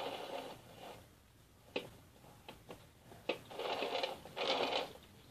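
Baking paper rustling and crinkling under hands pressing a sponge cake layer down into a metal cake ring. The rustling comes in a few short spells, the longest about two-thirds of the way in and near the end, with a couple of light taps between.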